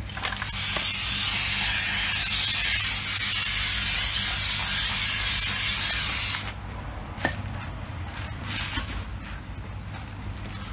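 Aerosol spray can sprayed in one continuous hissing burst of about six seconds that cuts off sharply, followed by a few light clicks and knocks.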